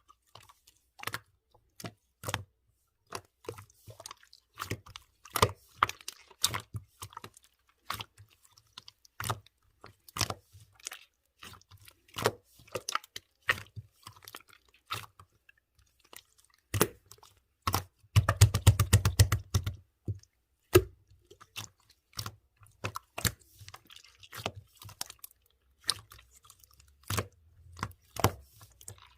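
Clear slime being pressed and squished by hand, giving a string of sharp, wet clicks and pops. About 18 seconds in comes a quick rapid-fire run of clicks lasting about two seconds.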